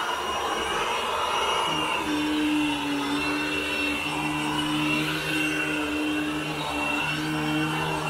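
Orange commercial upright vacuum cleaner running steadily as it is pushed over carpet, pre-vacuuming dry soil from the pile. Its motor hum drops slightly in pitch about two seconds in.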